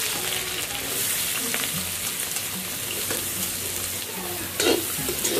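Freshly added chopped onions sizzling steadily in hot oil in an aluminium kadhai. From about four and a half seconds in, a metal spoon scrapes against the pan as the onions are stirred.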